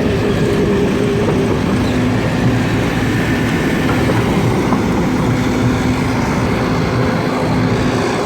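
Heavy diesel engine of earth-moving machinery running steadily, a constant engine hum with a few held tones.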